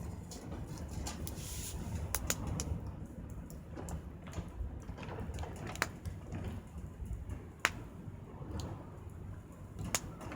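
Scrap wood burning in a small campfire pit, crackling irregularly with a few louder sharp pops over a low, steady rumble.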